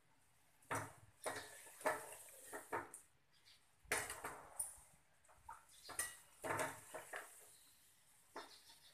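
Perforated steel skimmer clinking and scraping against an aluminium frying pan, about a dozen separate knocks, as the fried dough balls are turned and scooped out.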